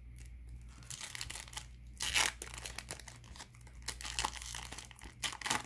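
Foil wrapper of a 2018-19 Upper Deck SP hockey card pack being torn open and crinkled by hand, with the loudest rip about two seconds in.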